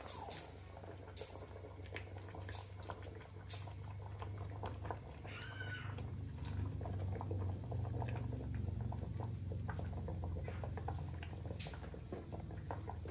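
Sharp pops and small clicks from a wood cooking fire crackling and from chopsticks knocking on the pot and bowl as boiled corn cobs are lifted out, over a low steady rumble. A short warbling chirp comes about halfway through.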